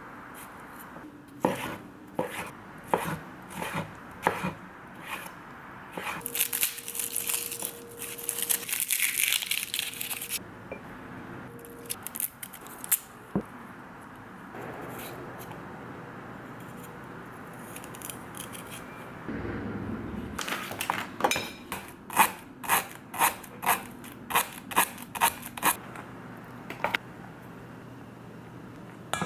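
Kitchen prep: a knife striking a cutting board in short runs of chops, a few strokes a second. There is a stretch of hissing noise from about six to ten seconds in.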